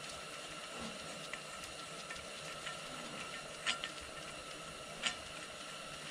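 Light clicks and taps as a bronze feed nut and a steel feed screw are handled: a few scattered clicks, the sharpest a quick pair about three and a half seconds in and another about five seconds in. Under them is a steady room hum with a faint whine.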